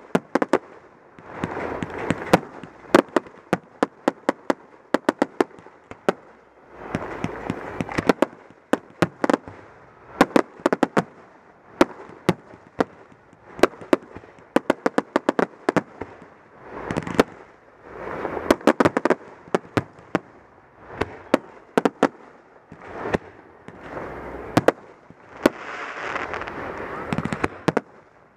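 Aerial fireworks shells bursting overhead: a continuous run of sharp bangs and crackles coming in quick clusters every second or two, with swells of noise between them.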